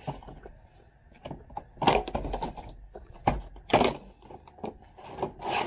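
Step pads being pulled off a Suburban's running board: several sharp snaps and scrapes as the pads come free of their clips.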